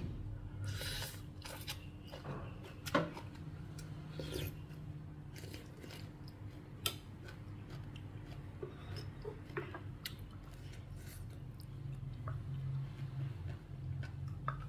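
A metal spoon in a ceramic soup bowl, making scattered light clinks and scrapes, with a stronger knock about three seconds in and another near seven seconds. A steady low hum runs underneath.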